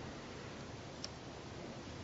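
Steady low hiss with a single faint, light click about a second in, as small steel parts of a Mauser C96 locking frame are handled.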